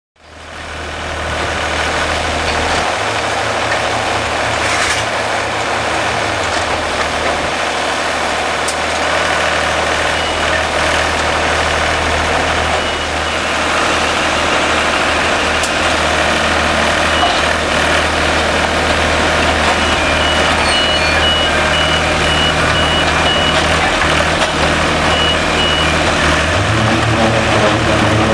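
Engine of an SRS Finlay BSM 412 mobile strapping machine running steadily. A high beeping comes and goes over it at times.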